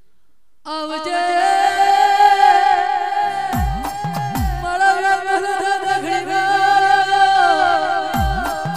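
Gujarati regadi folk song: after a faint lull, a singer comes in about a second in on a long, drawn-out note with wavering ornaments, over a low steady drone. Deep electronic drum hits that drop in pitch come in pairs, one pair near the middle and one near the end.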